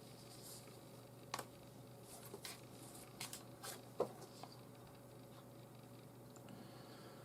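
Faint scratching and soft clicks of 550 nylon paracord being handled and pulled through a knot, scattered through the first half and loudest about four seconds in, over a faint steady hum.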